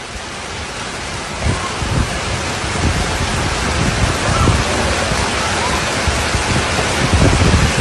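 Floodwater rushing in a fast torrent down a street, a dense steady noise of moving water that grows louder.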